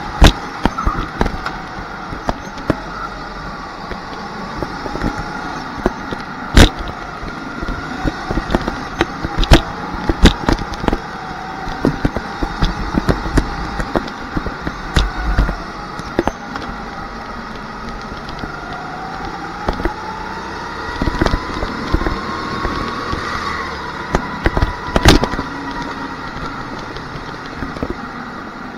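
Onboard sound of a rental go-kart racing on an indoor track: its motor runs continuously, the pitch rising and falling with speed through the corners. Many sharp knocks and rattles cut through, the loudest moments in the sound.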